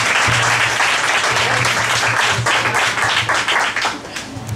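Audience applauding, the dense clapping thinning into scattered single claps and dying away near the end.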